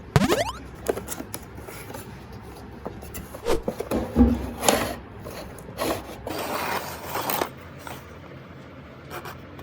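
A small toy-car electric motor whining up in a quick rising sweep at the start, followed by a run of irregular scrapes, rubs and knocks.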